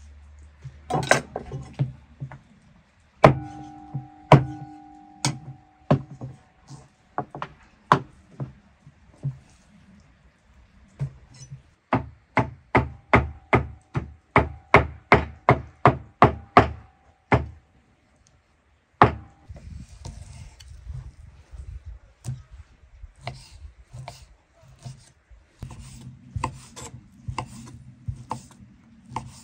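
A knife chopping on a wooden board: scattered knocks, then a fast, even run of about three chops a second in the middle, then slower, lighter taps. One early knock leaves a ringing tone for a couple of seconds.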